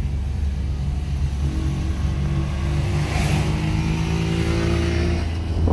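Car engine and road noise heard from inside the cabin while driving, a steady low drone. A short knock comes at the very end.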